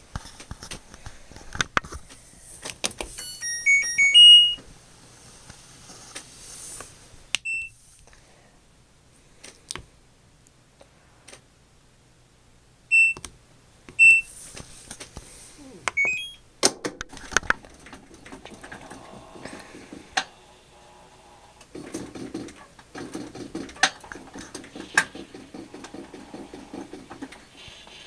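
LG top-load washer control panel beeping: a short rising tune about three seconds in, single beeps as cycle settings are pressed, and a quick rising chime a little past halfway as the cycle is started. After that the machine clicks and a mechanical running noise sets in as the washer begins its cycle.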